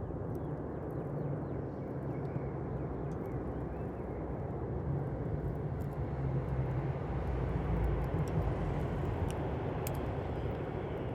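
Campfire burning: a steady low rushing sound with scattered faint crackles and pops.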